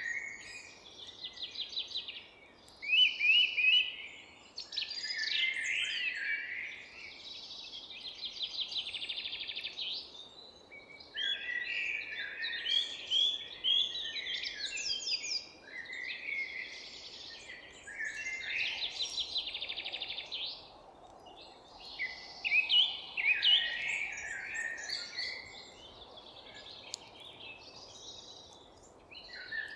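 Several forest songbirds singing at once, overlapping chirps, whistled phrases and rapid trills with short lulls between bouts, over a steady low background noise.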